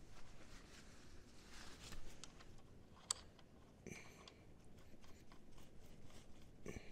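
Faint handling sounds: a cloth rag rustling and a few light clicks and taps of metal hardware, with the sharpest click about three seconds in.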